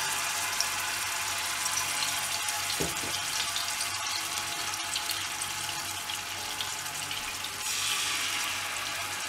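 Marinated sea bass pieces sizzling in shallow oil on a flat iron tawa, a steady hiss. It grows louder near the end as a second piece is laid into the oil.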